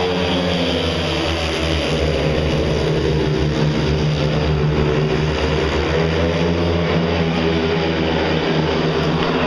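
A pack of four speedway motorcycles racing, their 500 cc single-cylinder methanol engines running loud and continuously, with the pitches of several engines shifting up and down together.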